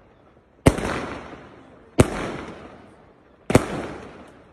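A 1.3G 25-shot firework barrage cake from the Gemstone Fireworks Cobalt pack firing shot after shot: three sharp bangs about one and a half seconds apart, each trailing off over about a second as the burst fades.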